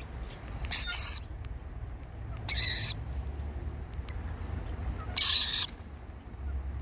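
A bird giving a harsh, hissing screech three times, about every two and a half seconds, each call lasting about half a second, over a steady low hum.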